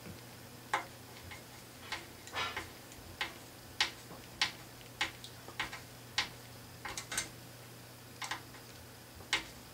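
Small screw being turned with a precision screwdriver into a plastic model part: a string of sharp, irregular clicks, about two a second, some in quick pairs, over a faint low hum.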